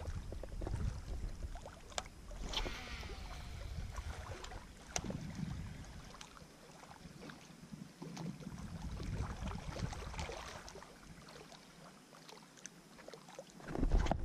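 Wind buffeting the microphone in gusts, over small waves lapping at a weedy shoreline, with scattered light clicks.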